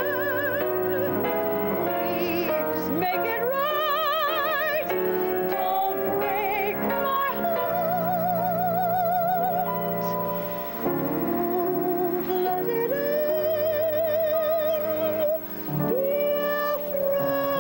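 A woman singing long held notes with a wide vibrato, sliding up into several of them, with piano accompaniment; the voice breaks off briefly near the end before the next phrase.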